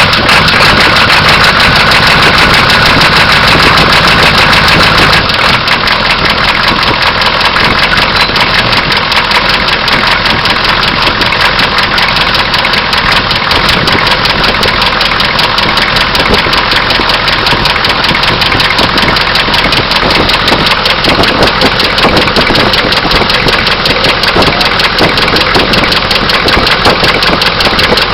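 Oldsmobile diesel engine idling with a knock, the idle easing down a little about five seconds in. The owner is unsure whether the knock is a bearing or an injector.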